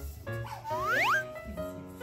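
Light background music with steady notes, with a quick upward-gliding whistle-like effect a little past halfway through.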